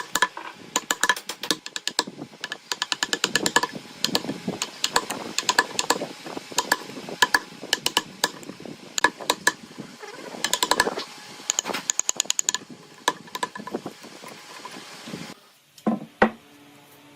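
Rapid, irregular tapping and knocking of hand tools working wood. It stops about fifteen seconds in, and two heavier thuds follow.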